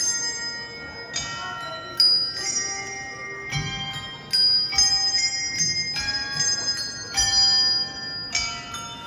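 Tuned bells playing a slow melody: chords of several high, clear notes struck together about once a second and left to ring. The loudest strike comes about two seconds in.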